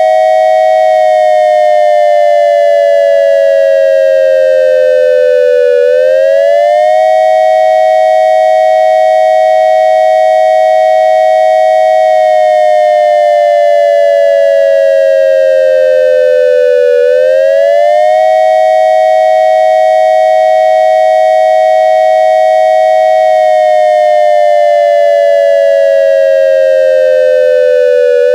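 Synthesized dual-tone electronic siren, a triangle-wave imitation of an ASC digital siren controller's attack signal. Two close tones hold steady, slide slowly down over about five seconds, then swing back up within about a second, in a cycle that repeats about every eleven seconds.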